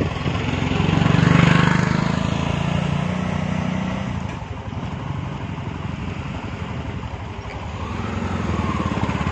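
A motor vehicle engine running steadily, with a pulsing low rumble. It swells louder from about one to four seconds in, then again near the end.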